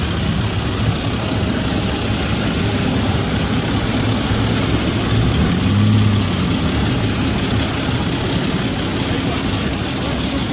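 Vintage Massey Ferguson and Ford tractor engines running as the tractors drive past one after another. The low engine note swells about six seconds in as one passes close.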